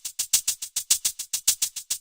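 Music: a steady, fast run of short, bright percussion strokes, about seven a second, like a shaker or hi-hat beat.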